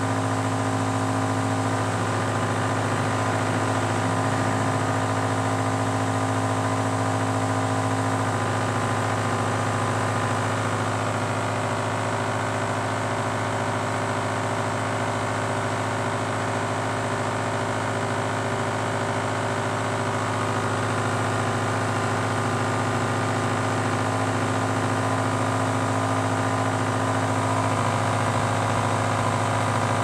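Microwave oven fan motor running on power fed through a bench transformer: a steady electrical hum with many overtones.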